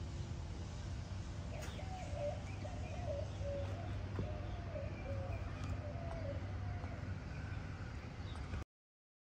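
Outdoor ambience: a bird calling in a run of short wavering notes over a steady low rumble, with a few faint higher chirps. The sound cuts off abruptly near the end.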